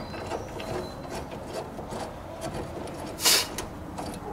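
Light metal clicks and rubbing from hand work at a car's front brake hub while the brake caliper bracket's upper bolt is fitted, with one louder brief scrape about three seconds in.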